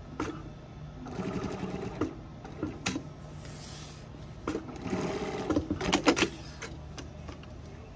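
Sewing machine stitching a patch onto a uniform jacket in two short bursts of rapid stitching, one about a second in and one around five seconds in. Single clicks from the machine fall between the bursts.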